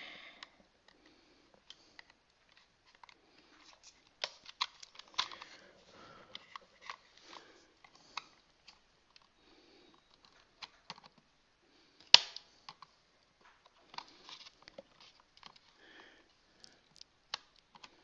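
Small screwdriver and fingers working at the plastic battery cover on the back of a toy robot: scattered small clicks, scrapes and handling noises, with one sharp click about twelve seconds in.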